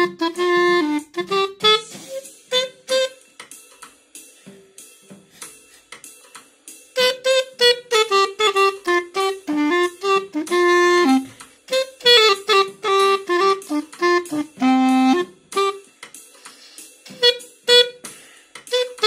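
3D-printed plastic pocket clarinet in C played by an amateur: phrases of short, detached notes and a few held ones, over a steady drum beat. The melody pauses for a few seconds early on and again briefly near the end while the beat carries on.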